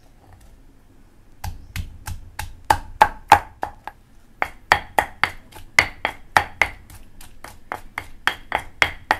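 Pestle pounding coriander root and garlic in a mortar for a seafood dipping sauce: steady strikes about three a second, each with a short ring. They start about a second and a half in and pause briefly near four seconds.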